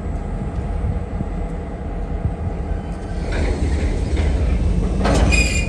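Diesel freight locomotives pushing a string of loaded covered container cars slowly past, with a steady low rumble. Near the end comes a short, high squeal, the loudest sound.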